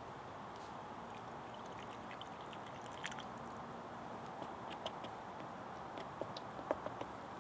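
Liquid tubeless tire sealant being poured into a mountain-bike tire, a faint steady trickle with scattered small clicks and ticks.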